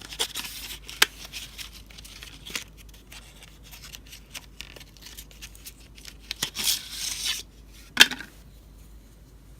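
Packaging being handled as pencils are worked out of their case: a run of small rustles and clicks, a longer rustle of packaging about two-thirds through, and one sharp click shortly after.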